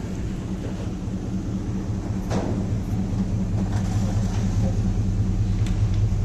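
Steady low drone of an idling vehicle engine, with a few faint knocks along the way.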